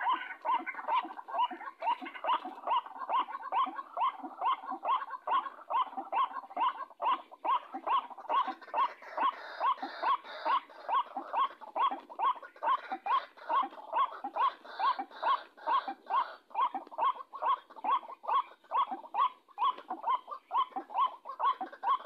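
White-breasted waterhen's 'ruak-ruak' call, repeated in a steady, rapid rhythm of about two to three notes a second.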